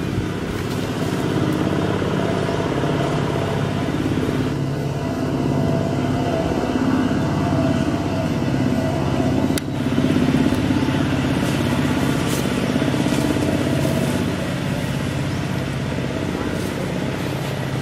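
A motor engine running steadily, a constant low hum.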